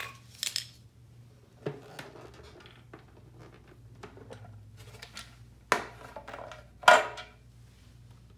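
Plastic snaps and knocks as the lid of an Aquaphor RO 101 reverse-osmosis filter housing is unclipped and lifted off, a handful of separate clicks with the loudest snap about seven seconds in.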